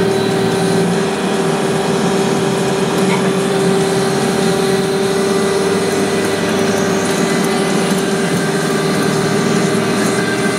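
Vacuum brick-laying machine running steadily: a constant engine drone with a steady whine held at one pitch.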